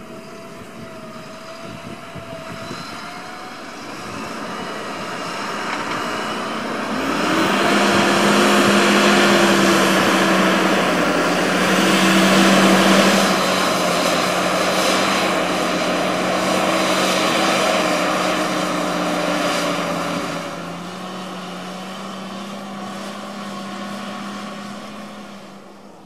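Fendt 936 Vario tractor's six-cylinder diesel engine working hard under load as it pulls a deep plough through heavy soil. It is a steady drone that grows louder from about seven seconds in as the tractor comes close, and eases off after about twenty seconds.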